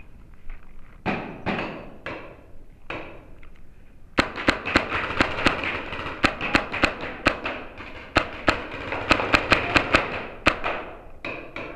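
Paintball markers firing in rapid, irregular volleys of sharp pops, about three or four a second, starting about four seconds in and stopping near the end. Before that there are two brief rustles of clothing or gear moving against the camera.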